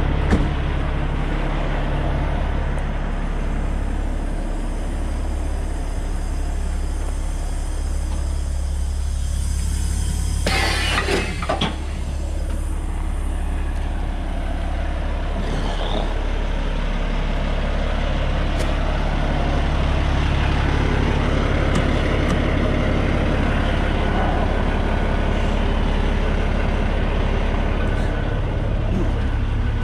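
Semi truck's diesel engine idling steadily, with a loud burst of air hissing from the air brake system about ten seconds in.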